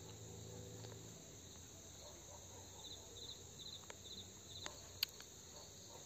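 Faint insect chirping: short, high, pulsed chirps repeating about five times in the middle, with a few soft clicks near the end.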